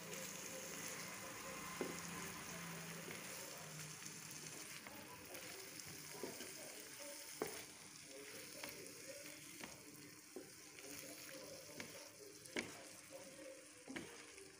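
Mutton liver masala sizzling in oil in a nonstick frying pan while a spatula stirs it, with occasional sharp taps and scrapes of the spatula on the pan. The sizzle softens a little in the second half.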